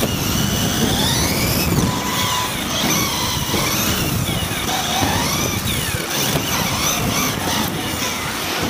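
Onboard sound of a Team Associated B74.1 1/10 electric 4WD buggy racing on carpet. Its electric motor whines, rising and falling in pitch again and again with the throttle, over a steady rumble of drivetrain and tyres.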